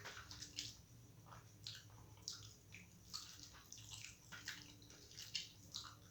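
Faint wet eating sounds: a person chewing and smacking a mouthful of rice with lentil dal, in short irregular clicks.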